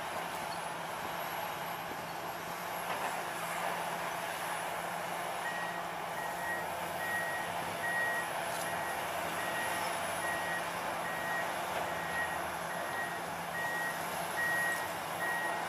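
Diesel engines of heavy earthmoving machines running steadily, with a backup alarm starting about a third of the way in and beeping at an even rhythm to the end.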